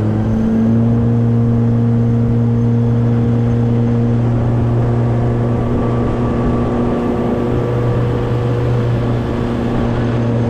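Small boat's outboard motor running steadily under way, picking up slightly about half a second in and then holding its pitch.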